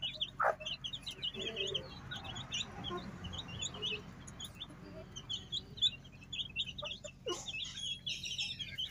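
Chicks peeping on and on in rapid, short, high peeps. A lower cluck from an adult chicken breaks in about half a second in and again near the end.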